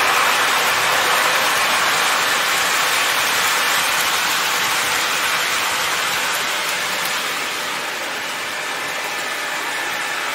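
O scale model train, an MTH ES44AC diesel locomotive hauling a string of cars, running on three-rail track: a steady rushing rumble of wheels on rail, loudest as the cars pass close at the start and easing off a little later on.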